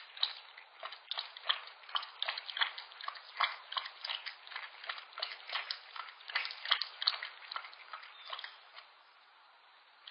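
Young bobcat lapping water from a bowl: a quick run of small wet laps at about three a second, stopping near the end as it lifts its head.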